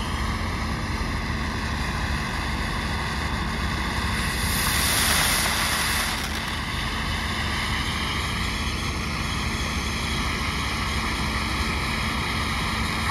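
Firehawk 'Noah's Ark' fountain firework spraying sparks with a steady hiss, which grows louder for a second or two just before the middle.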